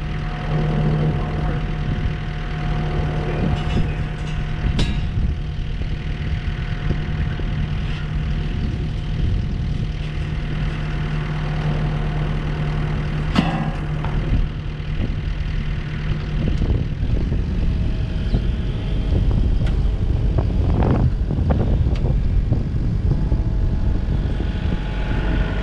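Kubota SVL compact track loader's diesel engine running steadily. Its drone changes about sixteen seconds in as the loader moves off, and two sharp metal clanks come about five and thirteen seconds in.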